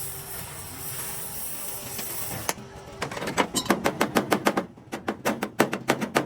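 A steady hiss, then about halfway through a rapid run of hammer blows on metal, three to four a second.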